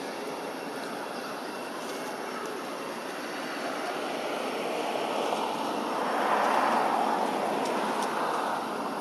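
Steady engine-like rushing noise of a passing vehicle, building from about four seconds in to a peak around seven seconds, then dropping back near the end.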